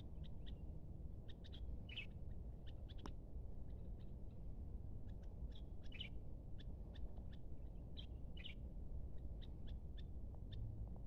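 Small birds chirping in short, high, scattered calls, over a steady low rumble.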